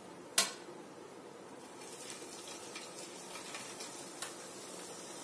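Chakli dough spirals sizzling as they go into hot oil in a frying pan: a steady hiss with small crackles that starts about two seconds in. A single sharp clink about half a second in.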